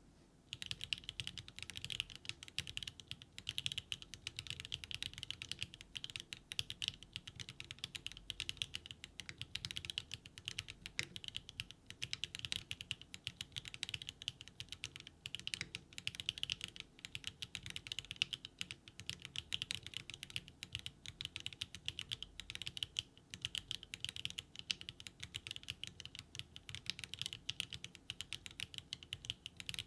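Steady, fast typing on a NEO75 CU mechanical keyboard fitted with HMX Snowcrash switches and GMK Kitsune plastic keycaps, a dense run of clacky keystrokes.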